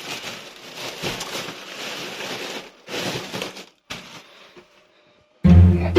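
Uneven rustling noise in two stretches, stopping well before the end, then background music with deep bass notes starts suddenly near the end.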